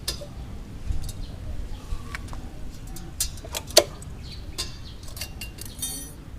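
Scattered metallic clinks and taps of tools and exhaust parts being handled, with one loud click about four seconds in and a short metallic ring near the end.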